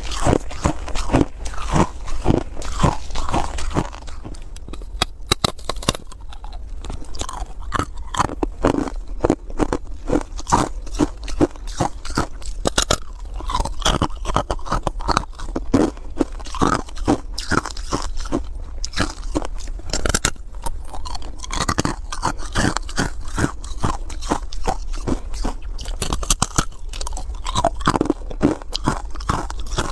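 Hard ice cubes being bitten and chewed close to a lapel microphone, a dense run of irregular sharp crunches over a low steady rumble.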